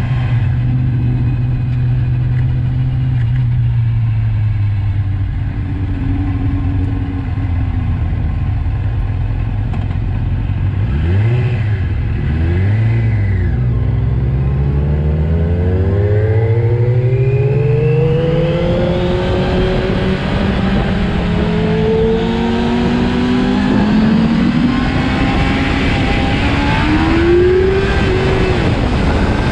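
600 cc inline-four sport bike engine under way: its pitch falls steadily as the bike slows, two quick revs rise and drop about twelve seconds in, then the engine climbs as the bike accelerates away.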